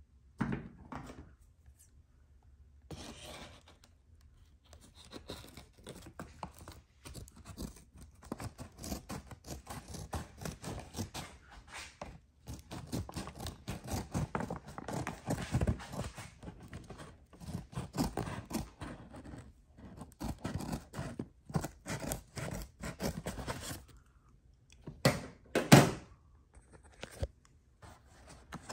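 Handling noise from unboxing equipment: packaging and parts being scraped and rustled, with many small irregular clicks and knocks and a sharper knock near the end.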